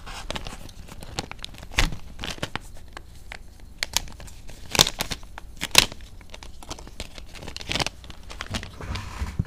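Plastic packaging bag crinkling and crackling as it is handled and its cardboard header card is torn off, with several sharp snaps, the loudest about two, five and six seconds in.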